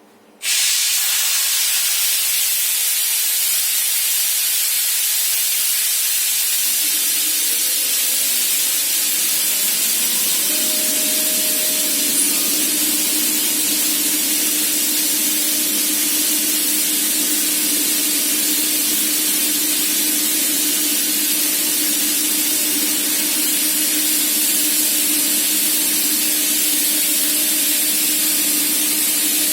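Compressed air blowing off through a silencer with a loud steady hiss that starts abruptly about half a second in. Underneath, the Gardner Denver ES15 screw compressor starts up about six seconds in, its tone rising and then holding steady. The open blow-off simulates air demand so that the compressor runs at full load for a flow test after its screw airend was repaired.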